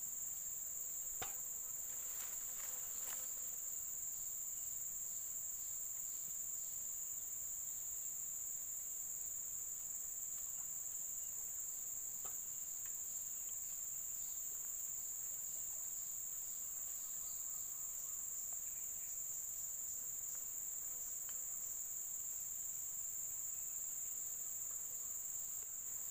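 A steady, high-pitched chorus of insects shrilling without a break. A few faint clicks come in the first three seconds.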